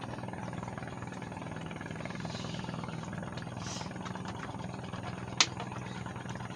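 Steady low hum of a running engine, with one sharp click about five seconds in.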